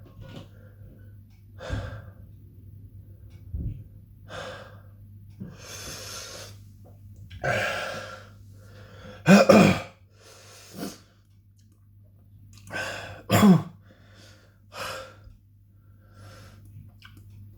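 A man breathing hard in and out through the burn of a super-hot chilli paste, a breath every second or two, with two loud, sharp voiced catches of breath about halfway through and again about four seconds later.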